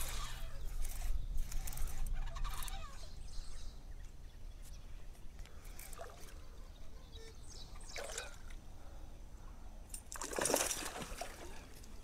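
Water splashing and sloshing beside a kayak in several short bursts, the loudest and longest about ten seconds in.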